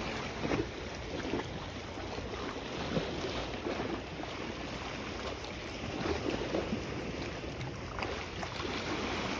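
Wind on the microphone over sea water sloshing below a concrete wall, with a few sharp knocks.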